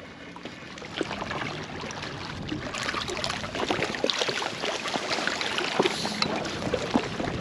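Steady outdoor noise of wind and water along rocks, with many small clicks and scrapes from a landing net pole and fishing rod being handled while a fish is landed.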